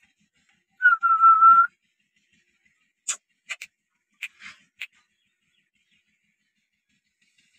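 A puppy gives one high, steady whine lasting just under a second, about a second in. A few short, sharp clicks follow over the next two seconds.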